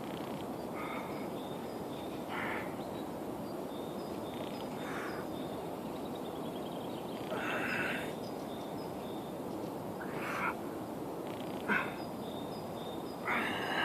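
Crow cawing in short harsh calls every couple of seconds, with faint high chirping of small birds over a steady background hiss.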